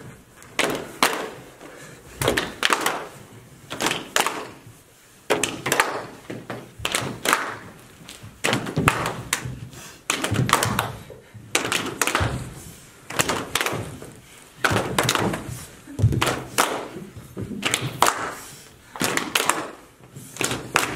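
A long irregular run of sharp claps and thuds, roughly one or two a second, echoing in a small room: hands clapping and bodies hitting the floor.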